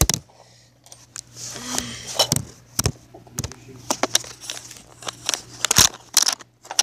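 Fidget spinner pieces being handled and pressed together by hand: irregular sharp clicks and knocks, with some rustling in between.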